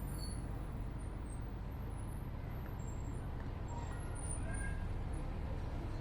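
Steady low rumble of a heritage tram running along its tracks.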